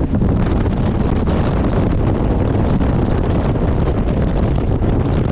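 Jet boat running at speed, its engine and rushing water buried under heavy wind buffeting on the microphone: a loud, steady rumbling noise.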